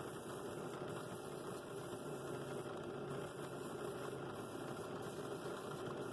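Benchtop drill press running steadily with a sanding drum in its chuck, sanding the side of a wooden scroll-saw bowl. The hiss of sandpaper on the wood comes and goes as the bowl is moved against the drum.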